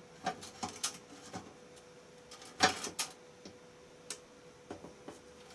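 Parts of a Ryobi 9-inch band saw clicking and knocking as they are fitted and handled, a scatter of sharp taps with the loudest clatter about two and a half seconds in.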